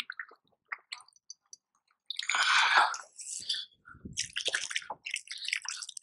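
A hand swishing and splashing in lake water at the side of a kayak, rinsing off after handling a pike. The water is quiet at first, then there are several short watery splashes from about two seconds in.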